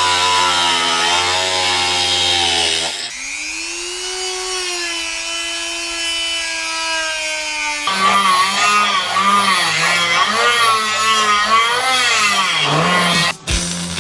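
Angle grinder cutting steel, its motor whine wavering in pitch under load, heard in short takes that change abruptly about three seconds in and again near eight seconds in; the middle take is a whine that rises and then holds steady.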